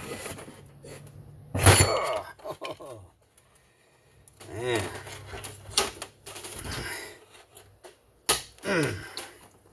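Screwdriver working out the screws of a Stihl 031AV chainsaw's fuel tank and starter housing, with scattered sharp metallic clicks and tool clatter on the workbench, the loudest about two seconds in and another just after eight seconds.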